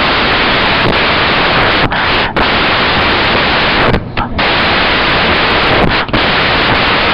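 Loud, steady hiss of recording static with no other sound in it. The hiss drops out briefly about two, four and six seconds in.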